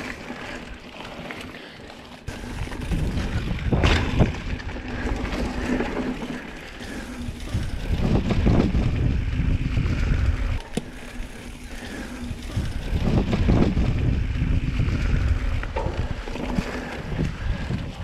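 Wind buffeting the microphone and knobby tyres rumbling over a dirt singletrack on a Specialized Stumpjumper mountain bike, swelling and easing several times, with sharp knocks from the bike over bumps about four seconds in and again near eleven seconds.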